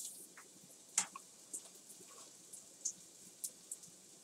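Corn tortilla strips frying in hot vegetable oil in a skillet: a faint steady sizzle with irregular sharp pops and crackles, the loudest about a second in.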